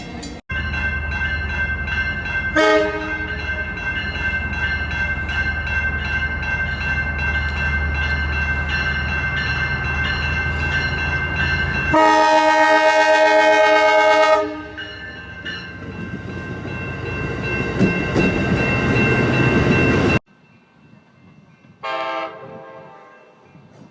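Passenger-train cab car horn: a brief toot about two and a half seconds in, a loud blast lasting about two and a half seconds in the middle, and a fainter short blast near the end. The horn sounds over the steady rumble of the moving train. The sound cuts off abruptly twice, between separate clips.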